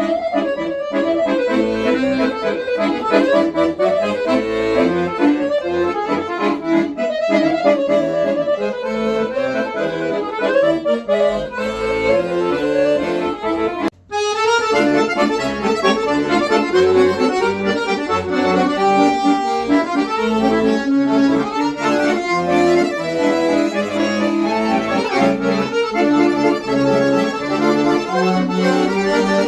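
Fisitalia 41.45 TC accordion being played: a melody on the treble side over low bass notes, with a brief break about halfway through.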